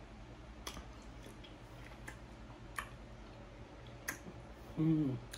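A few sharp, separate clicks of long fingernails tapping a phone screen while scrolling, over a faint steady low hum, with a short hummed "mm" near the end.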